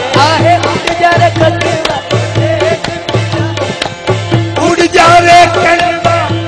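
Sufi devotional music: tabla strokes in a steady rhythm under a held melodic tone, with short sung phrases near the start and again about five seconds in.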